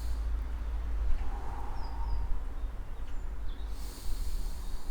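Garden birds chirping, a short high two-note call about two seconds in, over a steady low rumble of wind on the microphone. A soft rushing hiss rises near the end.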